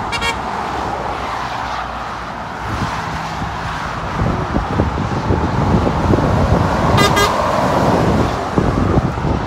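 Steady dual-carriageway traffic passing below, tyre and engine noise, as a lorry's engine grows louder coming up to pass underneath. A horn gives short pulsing toots right at the start and again about seven seconds in.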